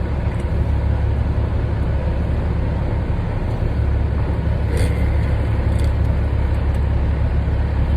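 Semi truck's diesel engine running at a steady low drone, heard from inside the cab.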